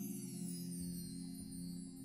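Percussion ensemble playing, with held marimba rolls in the low register and high metallic tones ringing above them, sliding downward.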